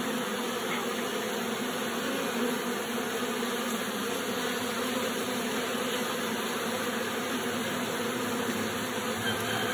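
Honey bees of an opened nucleus colony buzzing in a steady, even hum.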